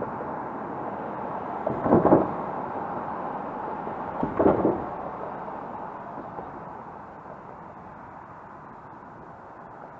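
Road traffic: cars driving past, with two louder swells as cars go by close, about two seconds and four and a half seconds in, then a quieter steady hum of more distant traffic. The sound is muffled, with no high end.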